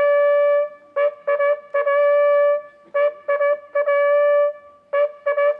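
Military bugle call played in unison by two bugles: groups of a few quick short notes, each ending on a long held note, repeated about every second and a half to two seconds.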